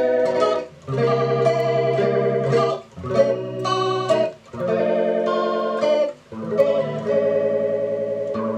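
Electric guitar chords strummed through a Danelectro Hash Browns flanger pedal, with brief gaps between phrases and a wavering, sweeping flange on the sound. The effected signal is now getting through the repaired pedal.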